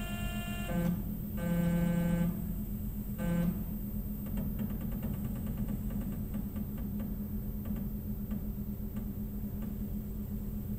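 Tormach CNC mill's stepper-driven axis jogging the table in short moves: a steady pitched whine starts and stops several times in the first few seconds. Then comes a run of faint ticks, about four a second, as the axis is nudged in fine steps.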